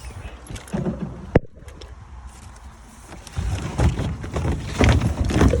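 Handling noise: a sharp click about a second and a half in, then irregular knocks and rustling with low rumble, busier in the second half.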